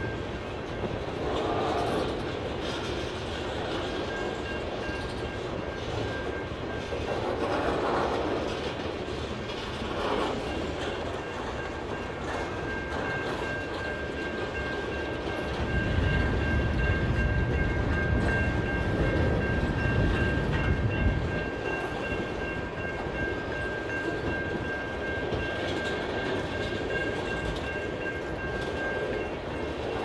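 Freight train of boxcars and tank cars rolling past at a grade crossing, its wheels clacking over the rail joints in a regular rhythm. A heavier rumble swells about halfway through, and a thin, steady high-pitched tone holds over most of the passage.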